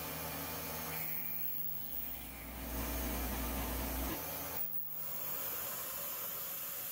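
CNC milling machine cutting a block of gummy aluminium with an end mill, under a steady hiss of compressed air blowing the chips clear of the cut. A low hum under the hiss stops about four seconds in.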